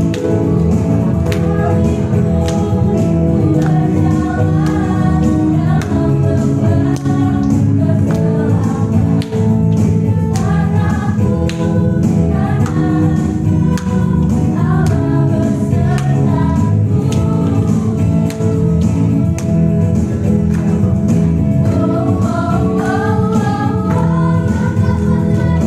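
Choir singing a Christmas worship song with instrumental accompaniment.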